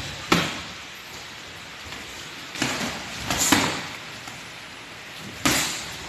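Boxing gloves landing in sparring: a sharp punch near the start, a quick flurry of three or four about halfway through, and one more near the end.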